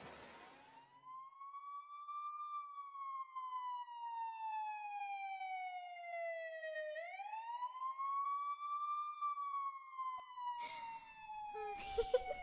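A siren wailing, twice climbing in pitch for about two seconds and then sliding slowly down for four or five. Near the end come a few short, noisy knocks, the loudest about twelve seconds in.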